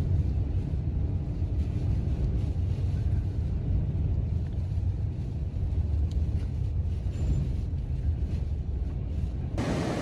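Steady low rumble inside a vehicle's cabin as it drives through a blizzard: engine and road noise. Near the end it cuts abruptly to gusting wind on the microphone.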